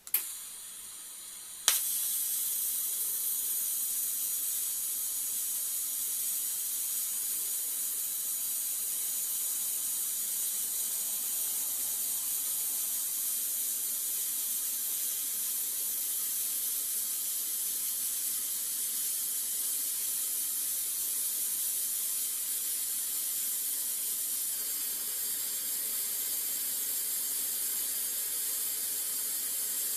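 TIG welding arc on stainless steel: a sharp crack as the arc strikes, then about two seconds in a second crack and a steady high hiss from the arc as a single continuous weld runs around the joint.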